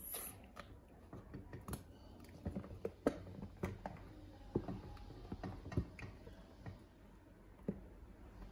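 Light, irregular taps and clicks of a cake mould being worked loose from a chocolate-covered cake onto a glass dish, about a dozen scattered small knocks.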